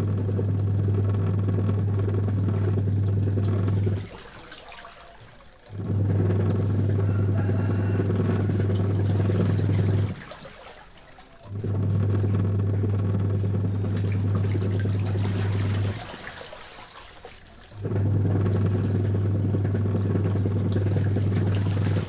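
Factory machine running in repeated cycles: a deep steady hum with machine noise runs about four seconds, stops for a second or two, then starts again, four runs in all.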